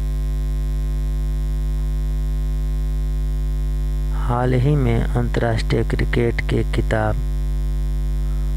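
Steady electrical mains hum: a loud, low buzz with a ladder of overtones. A voice speaks briefly in the middle.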